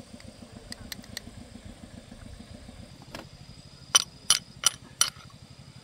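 Four sharp, ringing metal-on-metal hammer strikes about a third of a second apart on a removed tractor-engine piston, a few seconds in. A low, steady engine-like rumble runs underneath throughout.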